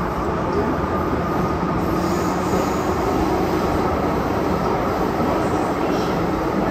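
MTR M-Train electric multiple unit running steadily along the track: a continuous rumble of wheels on rail with a faint steady motor hum.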